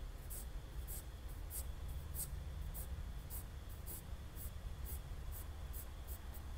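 Graphite pencil scratching on sketchpad paper in short, quick hatching strokes, about two or three a second, as diagonal lines are laid across earlier ones.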